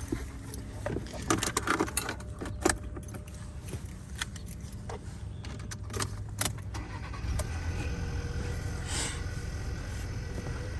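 A series of light clicks and rattles, like small hard objects being handled, over a steady low hum. The clicks thin out after about seven seconds, when the hum grows a little louder with faint steady tones.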